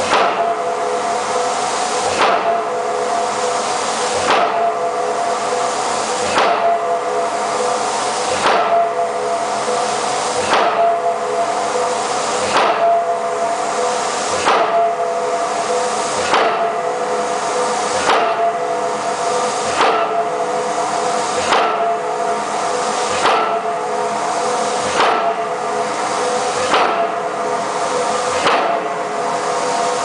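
Impact hammer driving an open-end steel pipe pile: heavy metallic strikes about every two seconds, coming slightly faster toward the end. Each strike is followed by a hiss that falls away, over a steady ringing of the steel.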